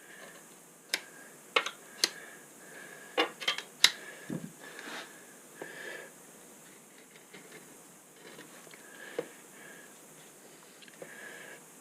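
Sharp clicks and taps of hand work on a metal wood-stove door: a cluster of about seven in the first five seconds and a single one near nine seconds. Between them a faint, slightly whistly sound comes and goes.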